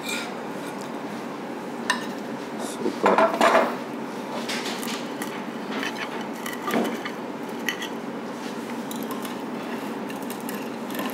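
Metal serving fork and spoon clinking and scraping against ceramic plates as noodles are served out, a few light clinks scattered through, over steady restaurant room noise.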